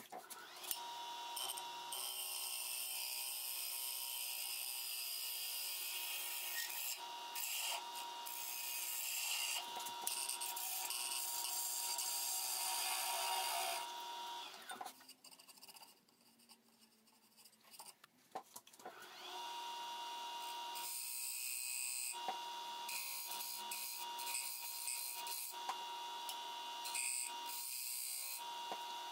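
A turning tool cuts into a mahogany bowl spinning on a wood lathe, a steady hiss of shavings over a thin steady whine. The cutting stops about halfway through for several seconds, then starts again.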